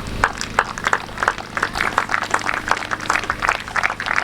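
Applause: a group of people clapping their hands, with the single claps distinct and irregular.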